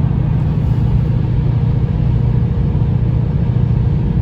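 Steady low rumble of a car's engine and tyres heard inside the cabin while driving along a highway.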